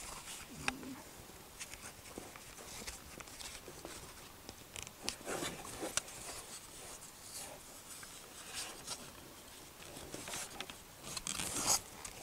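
Scattered small plastic clicks, scrapes and rustles as a welding helmet's battery cover is worked into place, with a louder run of clicks and scraping near the end; the part is not seating easily.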